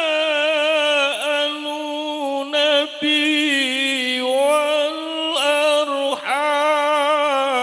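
A man's solo voice chanting Quran recitation (tilawah) through a microphone, holding long melismatic notes with rapid wavering ornaments, with short breaks between phrases.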